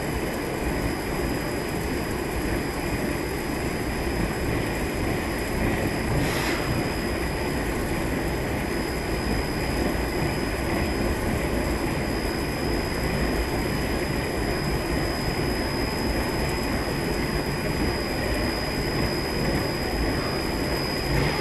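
Super-heavy radio-controlled concrete floor grinder running steadily, a continuous grinding rumble with a thin high whine on top, as it strips a thick resin coating from the concrete.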